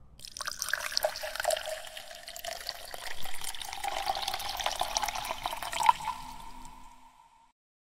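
Logo-sting sound effect for an animated channel ident: a dense crackling swirl of many fine clicks that builds and settles into a held tone, then cuts off near the end.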